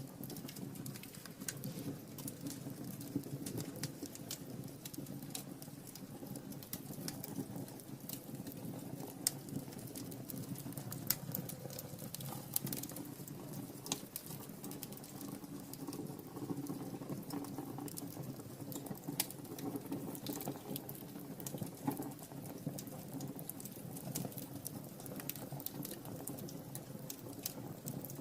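Wood fire burning in a fireplace, crackling with irregular sharp pops and snaps over a steady low rush of flame.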